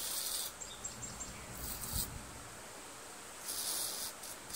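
Aerosol contact cleaner sprayed in short hissing bursts into the passages of a Kohler Command V-twin carburetor body, three blasts a second or two apart, blowing out the drillings to clean them.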